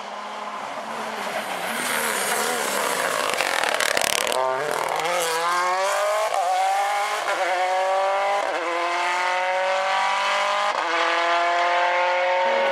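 Rally car at full throttle: it approaches with a rising rush of engine and tyre noise, drops in pitch as it passes about four seconds in, then accelerates away through several quick upshifts, its engine note climbing after each one.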